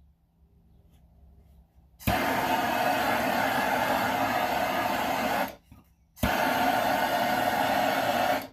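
Handheld torch firing in two steady blasts of hissing flame, about three and two seconds long, each starting suddenly with a click and cut off sharply.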